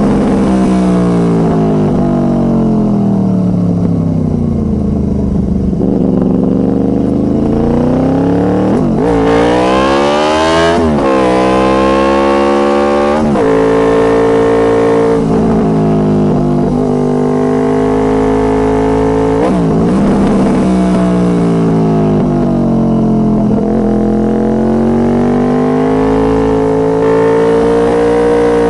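2006 Honda VFR800 Interceptor's V4 engine through a Two Brothers Racing exhaust, revs falling and rising in long swings through the bends, broken by a few quick gear changes.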